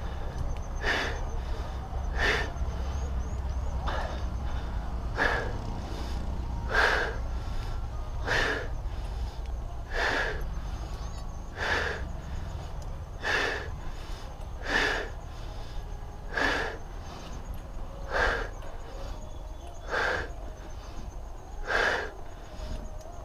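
Heavy, labored breathing of a cyclist working hard up a climb: a loud gasping breath about every one and a half to two seconds, over a low rumble that eases about halfway through.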